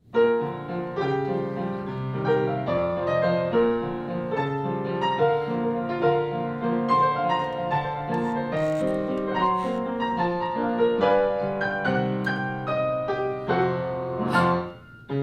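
Piano playing the instrumental introduction to a song, a steady run of chords and melody notes, easing off for a moment near the end before the next phrase.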